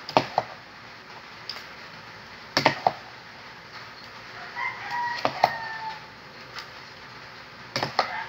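Plastic spoon scooping icy slush from a bowl into a plastic cup, knocking against the rims in pairs of sharp taps every couple of seconds. A drawn-out call sounds in the background about five seconds in.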